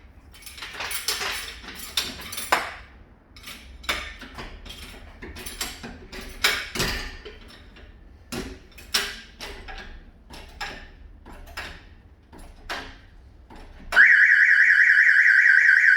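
A run of irregular metallic knocks and clanks as the van is jacked up. Near the end the Clifford Concept 650 alarm's siren starts sounding, a loud, fast-warbling tone, because the tilt sensor has been tripped by the jacking.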